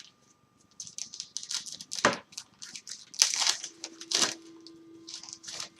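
Hockey card pack wrapper crinkling and tearing open, a run of short crackles and rustles with a few sharper ones about two seconds in and again a second or two later.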